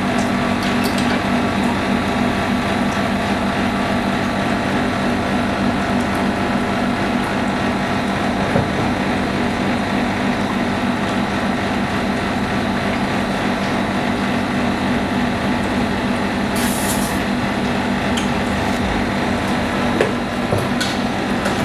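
Carrier split-type air conditioner running steadily with a low hum, its R22 refrigerant charge just topped up to about 65 psi after an undercharge had made the coil freeze. A brief hiss about sixteen seconds in, and a few faint clicks.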